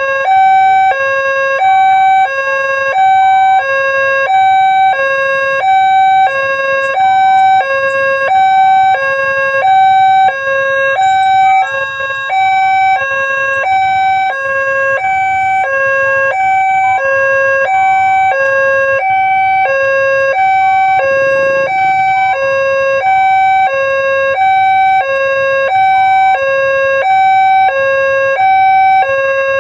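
Electronic two-tone warning siren of a railway level crossing, sounding continuously and alternating between a lower and a higher tone about once a second. It warns that a train is approaching and the crossing barrier is closed or closing.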